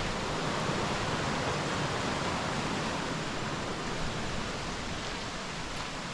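Sycamore Creek rushing steadily, swollen with recent rain.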